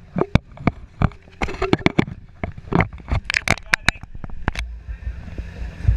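Motorcycle engine idling with a loud exhaust, broken by a string of irregular sharp pops and crackles that stop about four and a half seconds in.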